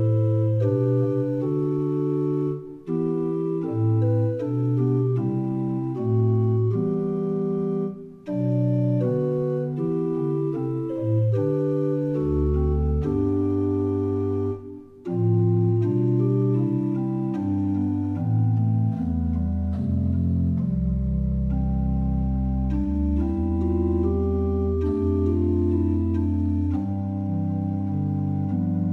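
Sampled organ from the Metropolis Ark 2 Hochbaum Organ library on its 8-foot sustain stop, playing held chords that change every second or two. There are short breaks between phrases about 3, 8 and 15 seconds in, and deep bass notes enter in the second half.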